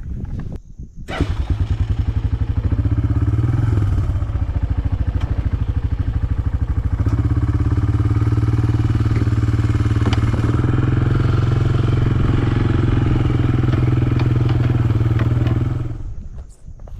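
Quad bike (ATV) engine running as it is ridden across rough ground; its note shifts up about seven seconds in and it cuts out near the end as the bike is stopped.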